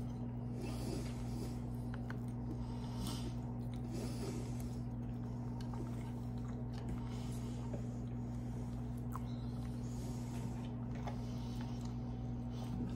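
Close-up chewing and soft mouth sounds of someone eating mashed potatoes and chicken, with faint irregular smacks, over a steady low hum.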